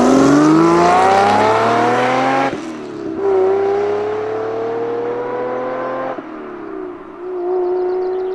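Jaguar XJC's 5.3-litre V12 engine pulling hard under acceleration, revs climbing smoothly in three pulls. Each pull ends in a sudden drop in revs, about two and a half and six seconds in. It runs through a new exhaust system, with new fuel injection and ignition fitted to the engine.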